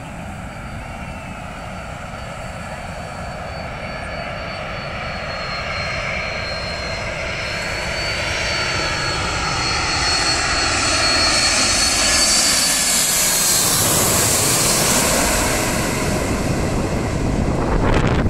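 Boeing 747-400 jet engines on landing approach, passing low overhead: the whine and rumble grow steadily louder, with tones gliding downward as it goes over, then give way to a broad roar. Near the end, gusts of jet wash buffet the microphone.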